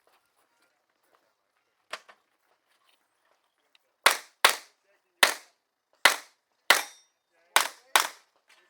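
Revolver fired rapidly: seven loud, sharp shots over about four seconds, some in quick pairs, after a fainter single report about two seconds in.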